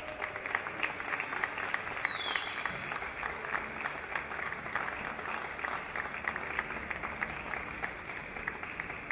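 Audience applauding: a crowd of people clapping steadily.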